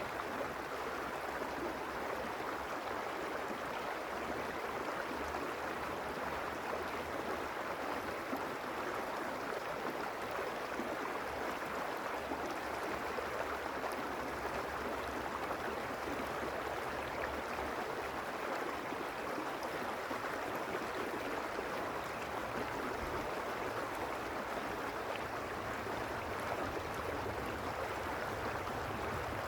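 A creek flowing steadily, a constant even rush of running water with no breaks.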